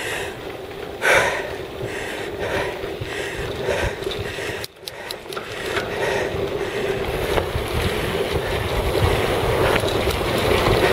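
Wind rushing over the camera microphone with the hiss of bicycle tyres rolling on a dirt trail during a fast downhill run. The steady rushing noise grows louder as speed builds, with a brief dip about halfway through.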